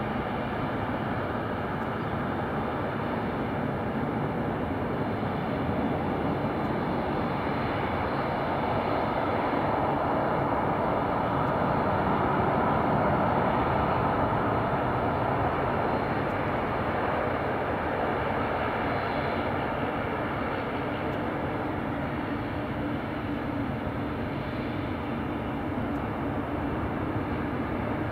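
Boeing 777 jet engines on final approach and landing: a steady jet noise with a faint whine on top. It swells to its loudest around touchdown, about halfway through, then eases slightly as the airliner rolls out along the runway.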